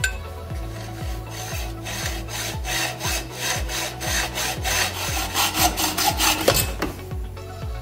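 Hand hacksaw cutting through a bent metal pipe clamped in a jig in a bench vise: a run of quick, even back-and-forth strokes that starts about a second and a half in and stops about a second before the end.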